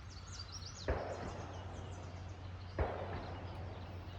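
A small bird chirping a few quick notes, then two sudden knocks about two seconds apart, each followed by a second or so of rustling noise.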